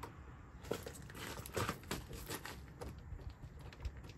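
Plastic clicks and rustling from hands working a truck's plastic door trim panel, with several sharp clicks scattered irregularly through it.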